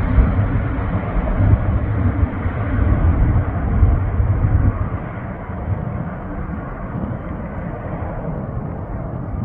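Airbus A330-300's Rolls-Royce Trent 700 turbofans at climb thrust as the airliner climbs away after takeoff. A steady low jet rumble fades and loses its upper hiss, dropping noticeably in level about halfway through.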